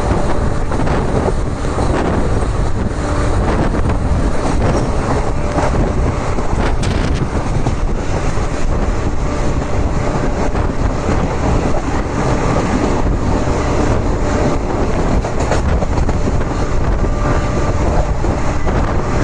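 Passenger express train running at speed, heard from a coach window: a steady rumble of the coach wheels on the rails with air rushing past the microphone.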